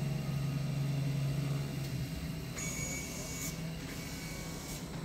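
Automatic vacuum-table fabric cutting machine running while it cuts a stack of cloth: a steady low hum that fades after about two seconds, with a fainter high whine from about two and a half seconds in.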